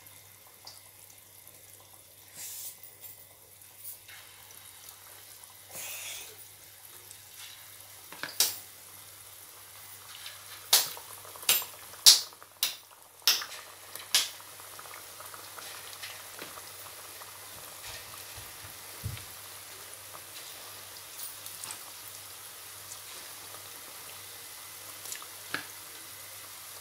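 Besan pakoras deep-frying in hot oil in a kadhai: a steady sizzle that grows louder partway through as more batter goes into the oil. A run of sharp clicks and pops stands out in the middle, the loudest sounds here.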